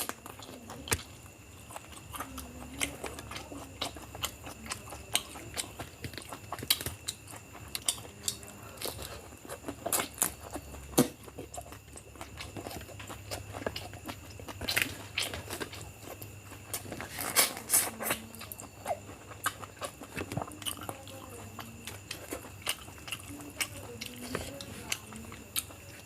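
Close-up chewing and mouth sounds of someone eating biryani, with many short sharp clicks and smacks scattered throughout.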